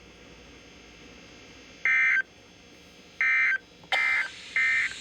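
NOAA Weather Radio SAME digital data bursts: four short, harsh two-tone warbles, starting about two seconds in, over faint radio hiss. Bursts this short are the end-of-message (NNNN) codes that close the flash flood warning alert.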